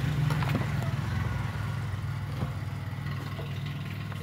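Steady low hum of an industrial sewing machine's electric motor running idle, the machine not stitching, with a few faint handling clicks in the first second.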